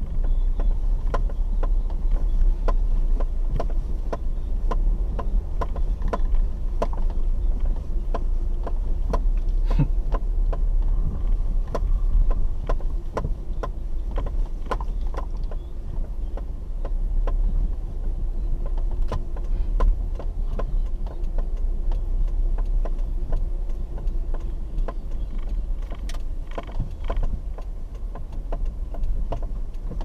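Car driving slowly over a rutted dirt road, heard from inside the cabin: a steady low rumble of engine and tyres, with many irregular clicks and knocks as the car jolts over the bumps.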